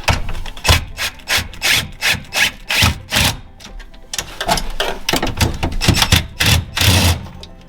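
Hand tool worked in quick back-and-forth rasping strokes, about three a second, with a short pause around four seconds in.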